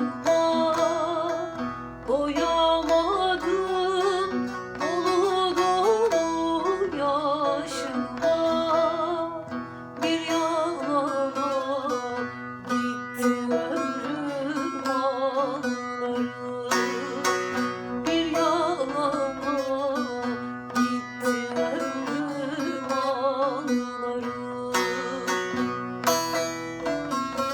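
Turkish folk song music played on plucked string instruments, with an ornamented, wavering melody over a steady low drone.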